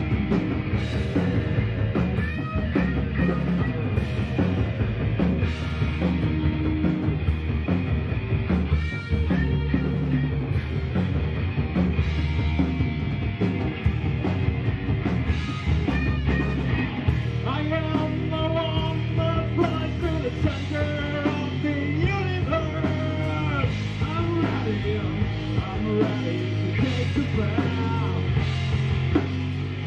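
Live rock band playing through a PA: electric guitars, drum kit and vocals in a psychedelic-rock style.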